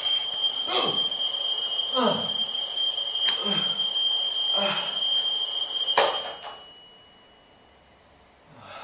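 Electronic alarm clock sounding a loud, steady high-pitched tone that cuts off suddenly about six seconds in. A man groans several times over it.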